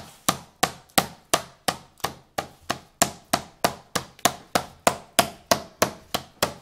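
Metal meat mallet pounding a chicken breast flat under plastic wrap on a plastic cutting board. The strikes are steady and even, about three a second.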